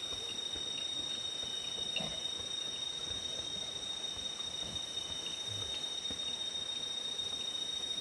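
Steady, high-pitched drone of forest insects, held on several pitches at once, with a few faint soft knocks underneath.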